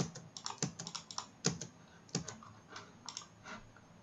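Computer keyboard keys clicking irregularly, a few quiet clicks a second.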